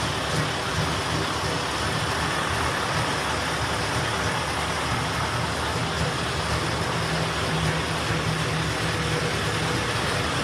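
KamAZ truck's diesel engine running steadily just after a cold start, still cold.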